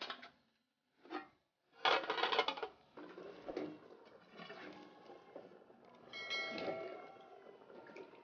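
Aluminium cooking pot and lid knocking together as the lid is set on: a few light clinks, then a louder metallic clatter about two seconds in.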